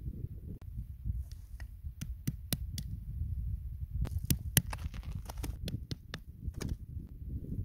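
A small hammer cracking walnut shells on a flat stone slab: a string of sharp, irregular cracks and taps, several a second at times and thickest in the second half. Under them runs a steady low rumble of wind on the microphone.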